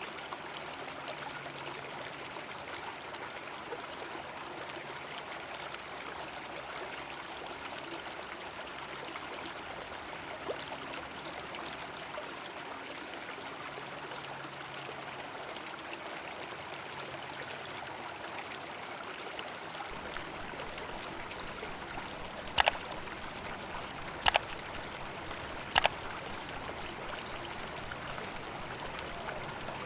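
River water running steadily. Near the end come three sharp knocks, about a second and a half apart, louder than the water.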